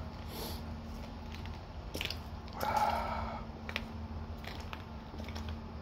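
Handling noise from a phone moved around close to the trike: rustling and scattered light clicks, with a brief louder scrape near the middle, over a steady low hum.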